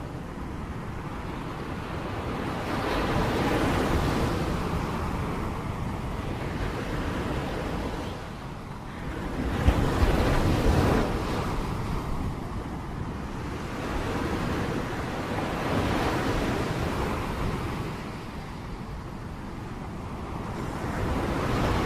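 Heavy rain with gusting wind: a steady rushing noise that swells and eases every few seconds, with one short sharp sound just before the middle.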